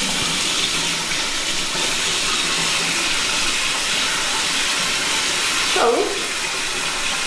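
Water running steadily from a tap, with a brief vocal sound about six seconds in.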